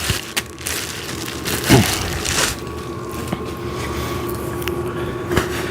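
Plastic end cap being pushed and twisted onto a square steel tube end, giving a few short scraping rubs, over a steady background hum.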